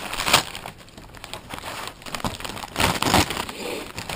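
Gift-wrapping paper crinkling as a dog chews and tugs at it, in irregular bursts that are loudest just after the start and again about three seconds in.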